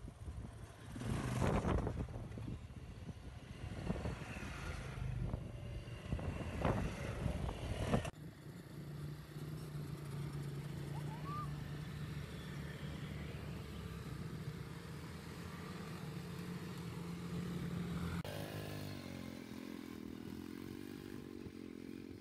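Small off-road engines of quad bikes and a buggy running and revving on a dirt track, in several clips cut together. The first stretch is louder and uneven, with vehicles passing close. After a sudden cut about eight seconds in, it settles to a steadier engine drone.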